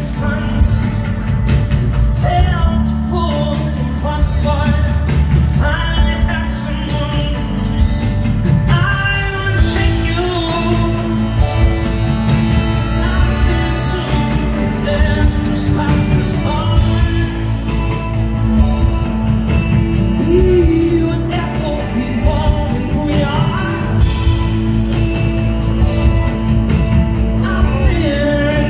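Live rock band playing, with a male lead vocal over electric guitars, keyboard and drums, heard from within the audience in a concert hall.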